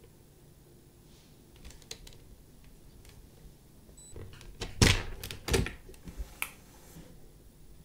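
Plastic clicks and knocks of Lego Technic parts being handled as a wheel and axle are pulled off a test rig, with two loud clacks about five seconds in and a few lighter clicks after.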